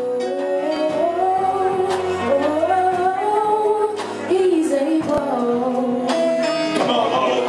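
Gospel music: a voice singing long, sliding notes over held instrumental chords.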